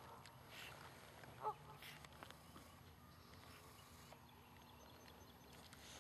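Two short honking animal calls: a louder one right at the start and a shorter one about a second and a half in, over a faint background.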